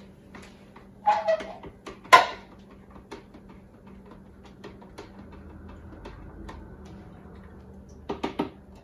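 A long spoon stirring tea in a plastic pitcher, clinking against the sides, with one loud clack about two seconds in. Near the end the pitcher's plastic lid is pressed on with a quick run of clicks.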